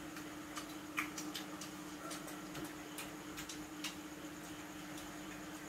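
Chopsticks clicking against ceramic rice bowls and plates while eating, light irregular clicks about once or twice a second, over a steady low hum.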